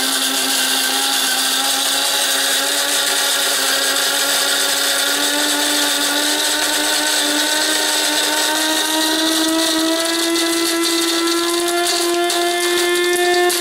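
Oster electric burr coffee grinder's motor running as it grinds whole roasted beans fine. Its steady whine rises slowly in pitch as the beans run out and steps up near the end, a sign that nearly all the coffee has been ground.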